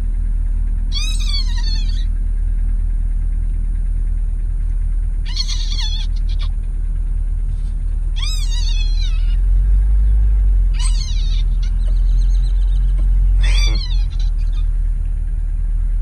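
A series of six short, high-pitched animal calls, each under a second and falling in pitch, repeated every two to three seconds over the low, steady running of an idling vehicle engine.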